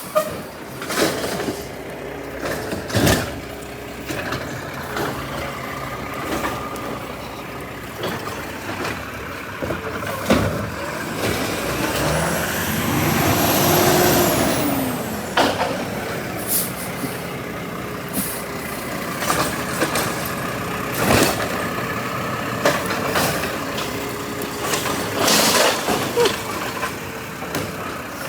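Garbage truck at work: the truck runs steadily with air-brake hisses, while trash cans bang and clatter many times as they are emptied. About halfway through, a whine rises and then falls away.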